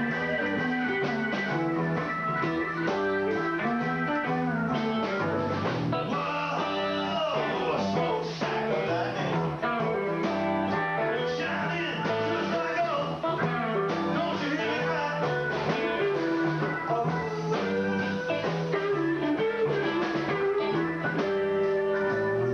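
Live rock band playing a blues number, guitar lines over a moving bass line. The recording is old and dull-topped.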